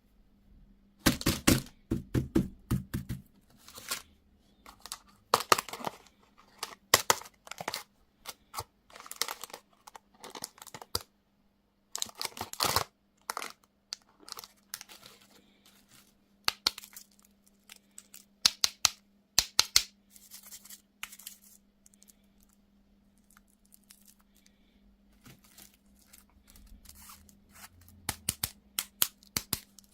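Candy and toy wrappers being torn open and crinkled by hand, in irregular bursts of sharp crackling and ripping with short pauses between.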